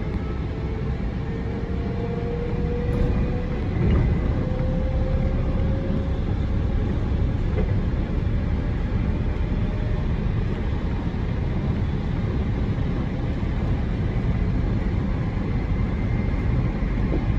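Steady running noise heard inside a moving train, wheels rolling on the rails, with a faint whine that rises slowly in pitch over the first few seconds.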